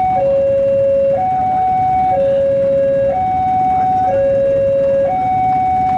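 Railway level-crossing warning alarm sounding an electronic two-tone signal, a high and a low note alternating about once a second, the warning that a KRL commuter train is approaching. A steady low rumble lies underneath.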